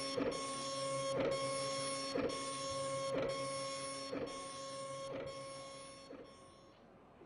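A music piece performed on dot matrix printers, heard as a recording: steady printer hum tones with a sharp printing stroke about once a second. It fades out near the end.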